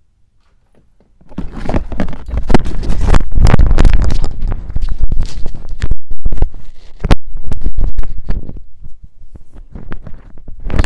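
Clip-on lavalier microphone being handled and fastened to a shirt: loud rubbing, scraping and clicking of fabric and clip against the mic, with heavy low rumble. It starts about a second in, is loudest for the next several seconds, then thins out, with one more flurry near the end.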